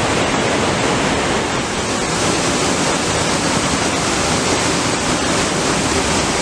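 Waterfall pouring into a river pool: a steady, loud rush of water.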